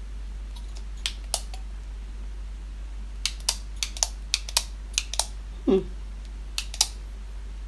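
A Mercedes-Benz pen clicking as it is handled: about a dozen short, sharp clicks, often in pairs, as its parts are worked.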